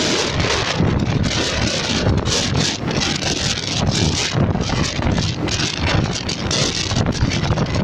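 Wind buffeting the microphone of a phone carried on a moving motorcycle at about 60 km/h, a loud, gusty rush, with the motorcycle's engine and road noise underneath.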